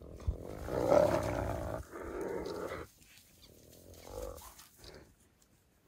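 Harsh calls from the African wild dogs and spotted hyena at the impala kill: two long, rough calls in the first three seconds, the first the loudest, then a shorter, quieter call about four seconds in.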